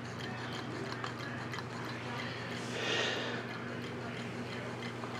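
Low-temperature-difference Stirling engine running at around 195–200 RPM, its mechanism giving a light click about three times a second over a steady low hum. A brief hiss rises and fades about three seconds in.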